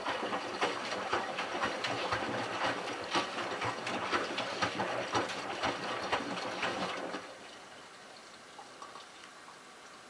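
Miele Touchtronic W3033 front-loader's drum turning on its delicate cycle, with water sloshing and splashing inside over a low machine hum. The drum runs for about seven seconds, then stops, leaving a faint hiss.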